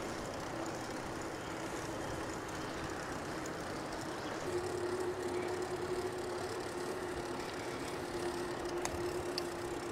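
Electric mountain bike being ridden along a trail: an even rush of wind and tyre noise with a steady motor hum, which steps up slightly in pitch and gets a little louder about four and a half seconds in.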